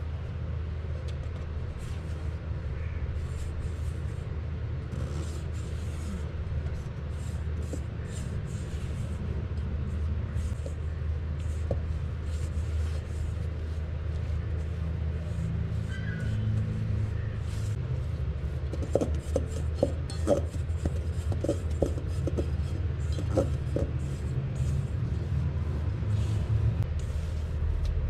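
Silicone spatula stirring and pressing cookie dough in a stainless steel bowl: light scrapes throughout and a run of small knocks against the bowl about two-thirds of the way through, over a steady low rumble.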